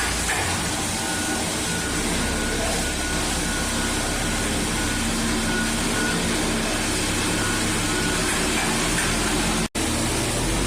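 CNC plate-rolling machine running, a steady mechanical noise with a low hum. It breaks off for an instant near the end.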